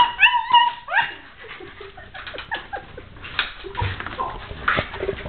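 Small dog whining and yipping in excited greeting: a quick run of high whines in the first second, then quieter short whimpers.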